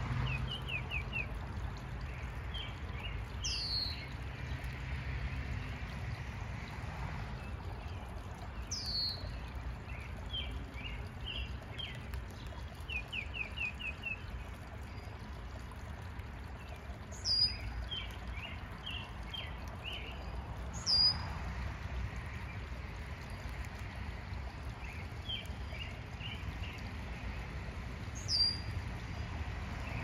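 Wild birds calling: a short, high call that slides downward, heard about five times and loudest three times in the second half, over scattered quick bursts of lower chirping.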